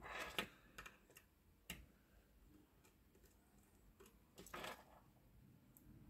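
Faint scattered clicks and rustling from fan wires being handled and pushed into the screw terminals of a small fan speed-controller board, with a longer rustle about four and a half seconds in.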